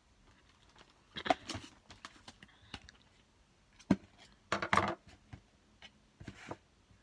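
Hands handling a clear plastic food container and peeled pomelo flesh: scattered small clicks, taps and rustles, with a sharp knock just before four seconds in and a brief cluster of louder handling noises about a second later.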